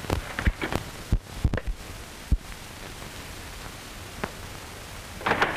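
A quick run of dull knocks and thumps from a scuffle on a hay-covered barn floor, then only the steady hiss of an old film soundtrack, with a single click and a short louder burst near the end.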